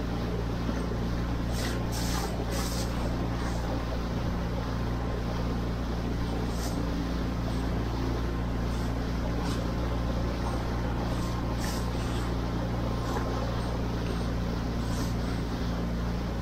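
Small skiff's engine running steadily at speed, with water rushing past the hull and a few brief splashes of spray.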